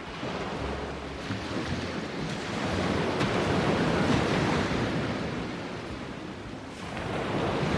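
Sea surf washing onto a beach, swelling to a peak midway, easing off, then building again near the end, with wind buffeting the microphone.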